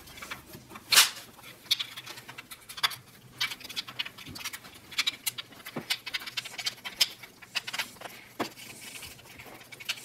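Scattered, irregular clicks and taps of parts being handled as the timing chain tensioner arm and its bolt are fitted into a Honda Civic engine, with the loudest knock about a second in.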